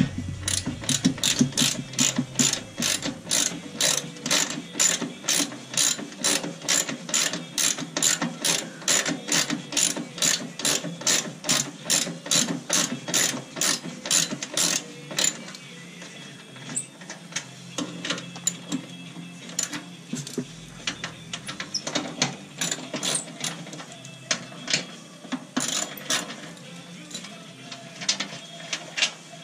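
Socket ratchet wrench clicking as it is worked back and forth on a bolt under a riding mower. The clicks come about three a second for roughly fifteen seconds, then slower and more scattered.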